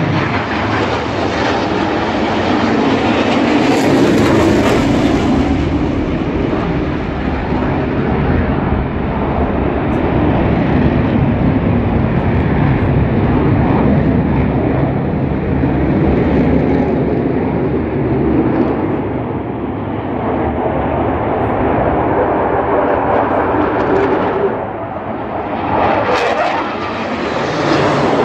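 Navy jet fighters flying past overhead in formation, a continuous jet-engine roar. It swells about four seconds in, eases, and swells again near the end as jets pass close.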